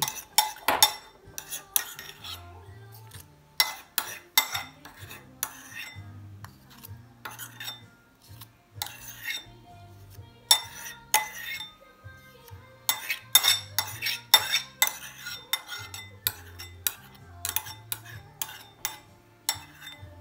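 Metal utensils clinking and knocking against dishes and pots, many sharp clinks at uneven intervals, over background music with a stepping bass line.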